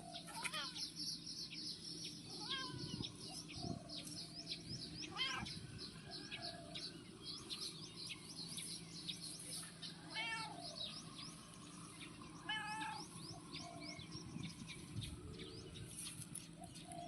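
Cat meowing about five times, short separate calls spread over the stretch, with many quick high chirps going on throughout.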